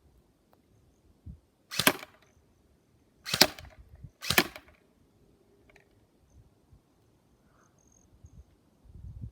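Battery-powered HK416 airsoft electric gun fired on single shot, three separate shots, the last two about a second apart.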